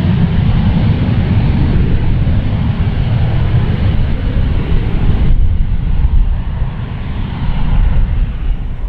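Twin-engine business jet at takeoff thrust, a loud rushing jet roar over a deep rumble as it rolls, lifts off and climbs away. About five seconds in, the high hiss dulls abruptly while the low rumble carries on.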